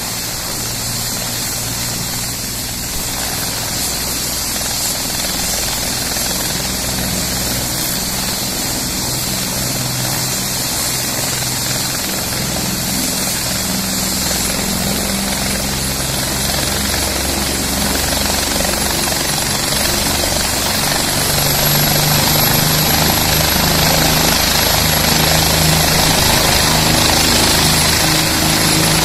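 Bell 427 helicopter's twin turboshaft engines and rotor running on the ground, with a high turbine whine that rises a little in pitch partway through. The whole sound grows louder about two-thirds of the way in.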